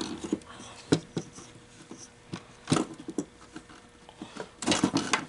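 Scattered plastic clicks and knocks from an MEI bill validator being unplugged and handled on a workbench, a few single knocks and then a quick run of them near the end. A faint steady hum stops about four seconds in.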